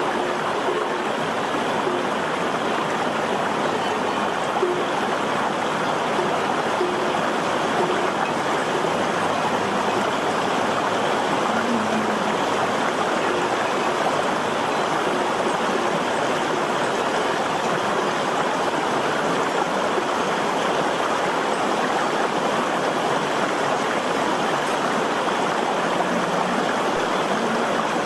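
Shallow, rocky stream rushing steadily over stones.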